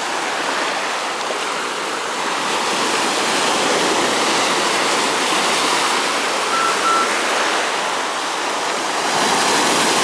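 Sea waves breaking and washing over a flat rock shelf at the water's edge: a steady rush of surf that grows a little louder near the end.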